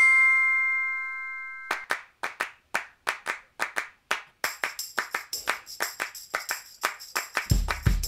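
Background intro music. A bright chime chord rings out and fades, then a quick, even rhythm of short percussive hits starts about two seconds in. A high shimmering layer joins about halfway, and a heavy bass beat comes in near the end.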